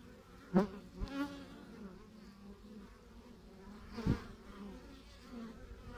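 Buckfast honeybees buzzing at a hive entrance as foragers fly in and out, a steady hum with short louder buzzes about half a second, one second and four seconds in.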